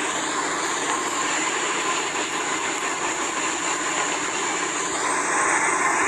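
Steady roar aboard a fishing boat running through rough seas: engine noise mixed with the rush of its wake and wind, growing a little louder about five seconds in.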